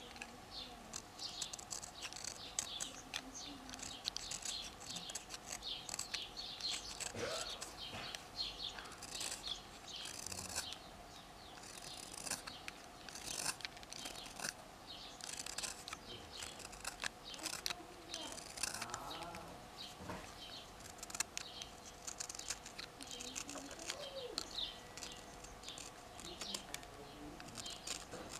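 Utility knife blade whittling a small wooden lure body by hand: a continual run of short scraping cuts, some bunched close together, as thin curls of wood shave off.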